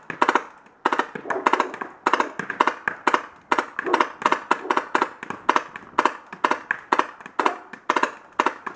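Tippmann X7 Phenom paintball marker firing strings of shots in quick succession, burst after burst with brief pauses between.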